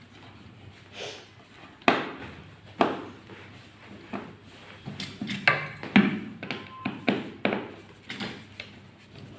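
Irregular knocks and thuds as a chair is handled and worked on during repair, the sharpest about two, three, five and a half and six seconds in, with lighter taps and clatter between.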